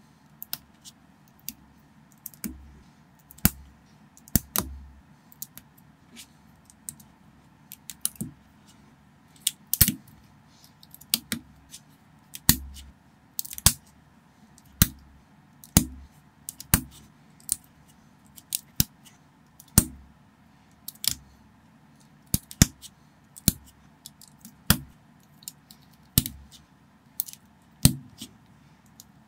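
Plastic building bricks being pressed together and handled by hand: irregular sharp clicks, about one a second.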